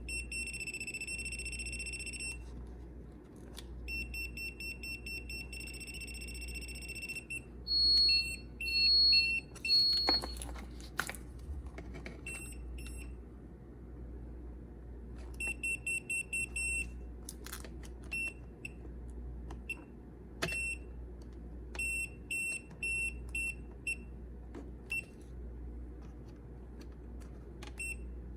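Electronic beeper sounding runs of short, high-pitched beeps: some held, some in rapid strings. About eight seconds in come three louder beeps at a higher pitch.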